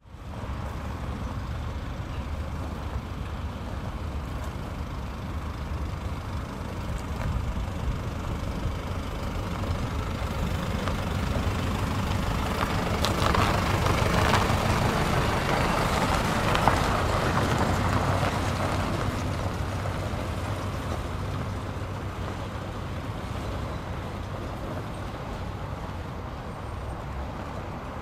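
GAZ Valdai medium-duty truck driving past, its engine running with a steady low rumble. It grows louder as the truck approaches, is loudest about halfway through, then fades as it pulls away.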